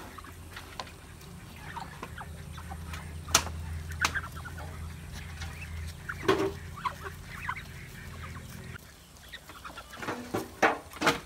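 A flock of Muscovy ducks feeding on chopped coconut, with scattered soft calls and several sharp clicks, the loudest a quick cluster near the end. A low steady hum underneath stops about nine seconds in.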